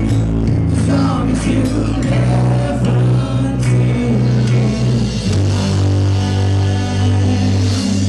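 Loud heavy rock music played by a live band in a club, with distorted guitars and heavy held bass notes. The low notes change about five seconds in.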